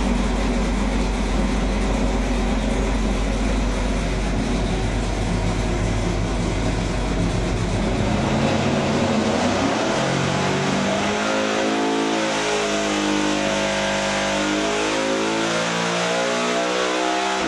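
Racing engine revving at high rpm, loud and steady. From about halfway in, its pitch steps up and down as the revs change.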